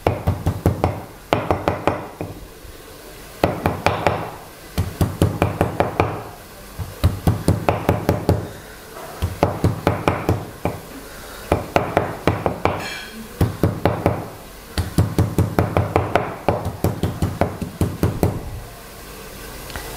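Metal meat tenderizer mallet striking a plastic cutting board in quick runs of knocks, about five a second, with short pauses between the runs.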